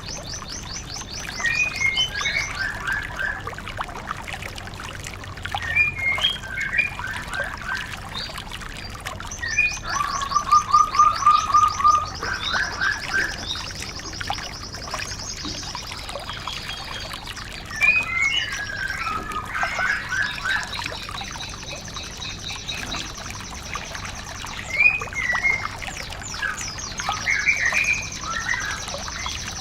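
Recorded songbird song used as a training track for caged white-eyes: fast high trills repeating every few seconds, mixed with chirpy warbled phrases, with a lower, slower trill about ten seconds in.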